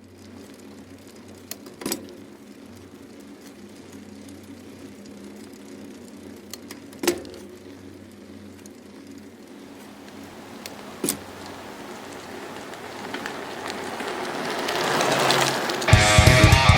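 A steady low hum and hiss with three sharp clicks, swelling over the last few seconds until loud electric-guitar rock music cuts in near the end.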